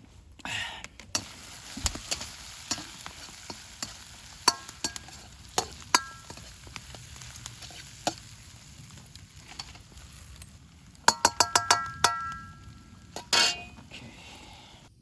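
Food sizzling and being stir-fried in an iron wok, with sharp taps of a metal utensil against the pan. About eleven seconds in comes a quick run of ringing metal clinks.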